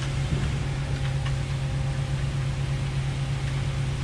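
Concrete boom pump truck's engine running steadily while pumping, a continuous low drone. There is no rattling of concrete in the boom pipe, since the mix is flowing smooth.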